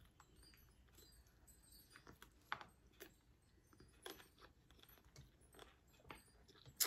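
Quiet eating sounds: faint chewing and mouth noises with a few small scattered clicks, the sharpest just before the end.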